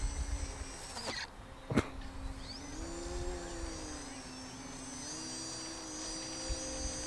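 E-flite Edge 540 QQ's electric motor and propeller whining in flight, the pitch dipping, then rising and falling as the throttle changes and the plane moves. A sharp click comes about two seconds in, and wind rumbles on the microphone during the first second.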